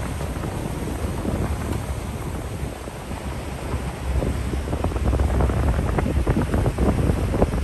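Wind buffeting the microphone on a moving boat, with water splashing irregularly; it grows louder about four seconds in.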